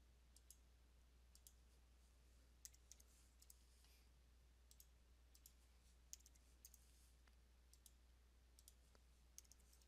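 Near silence with faint, irregular clicks from a computer mouse and keyboard, about two a second.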